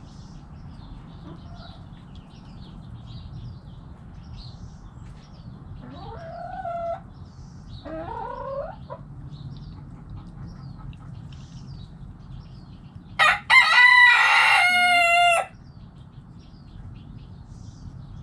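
Rooster crowing once, loud, about thirteen seconds in: a brief note and then a long call held for about two seconds. Before it come two shorter rising chicken calls, with faint high chirping throughout.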